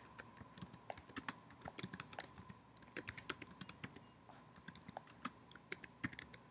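Typing on a computer keyboard: quick, irregular key clicks coming in runs, over a faint steady high hum.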